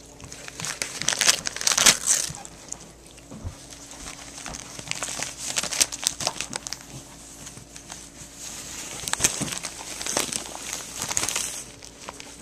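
A dog tearing and chewing at a newspaper in its red plastic wrapper: paper and plastic crinkling and ripping in irregular bursts, loudest about two seconds in and again near the end.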